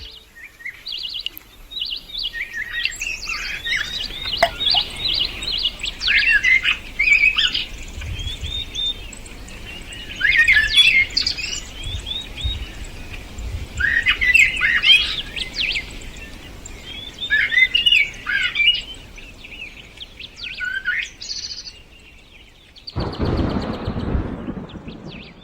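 Birds chirping and singing in repeated short bursts of quick, high notes. Near the end comes a brief rushing noise lasting about a second and a half.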